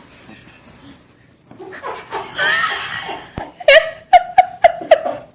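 A person laughing: a shrill, wavering laugh, then a run of about five short, loud bursts of laughter near the end.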